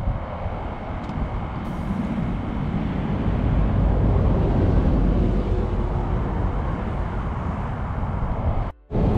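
Wind buffeting the microphone on an open shoreline: a steady low rumble with a little hiss above it. Near the end the sound drops out abruptly for a moment, then returns.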